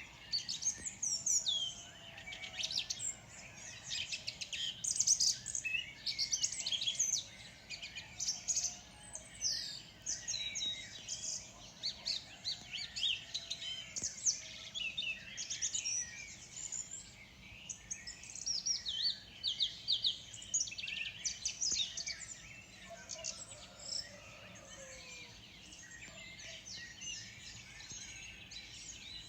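Several birds chirping and singing at once in a morning chorus: many quick, overlapping high chirps and trills. The calling is busiest for the first twenty seconds or so, then thins out toward the end.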